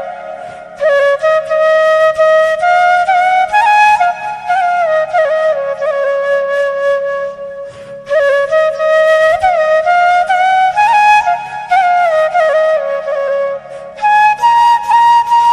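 Bamboo flute (bashi) playing a slow, ornamented folk-style melody in long phrases, with sliding notes and short pauses between phrases, over a faint steady drone.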